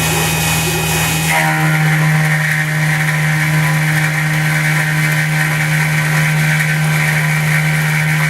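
CNC milling machine's spindle running, with an end mill cutting through the block of stock, a steady hum. About a second in the sound changes and a higher whine comes in, as the cut changes.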